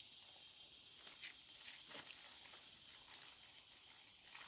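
Insects, crickets, chirping in a faint, steady, high-pitched pulse of about five chirps a second, with a few faint ticks.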